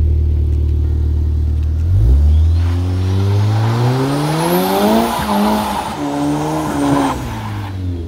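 Audi TT engine idling, then revving up hard from about two seconds in and held high as the front wheels spin in a burnout on loose dirt, with tyre and grit hiss over the engine. With the Haldex all-wheel drive switched off, only the front wheels are driven. The revs drop away about seven seconds in.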